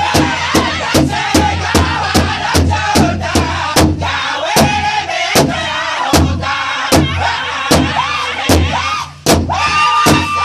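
A powwow drum group, several men striking one large powwow drum together at about three beats a second while singing a high-pitched northern-style song in unison. Near the end the drumming breaks off for a moment, then comes back under a long held high note.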